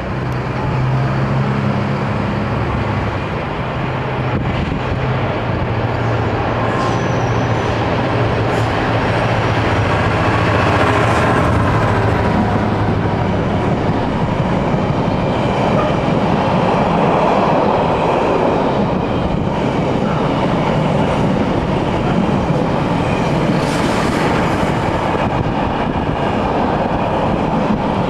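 Freight train of container wagons passing close by. A steady low hum for about the first twelve seconds gives way to the continuous rumble and rattle of the wagons' wheels on the rails.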